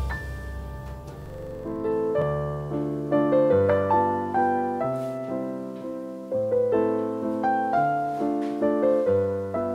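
Background piano music: a gentle melody over slow bass notes.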